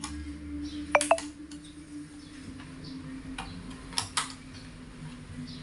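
A few sharp clicks and taps from laptop parts being handled, the loudest a close pair about a second in and two more about four seconds in, over a steady low hum.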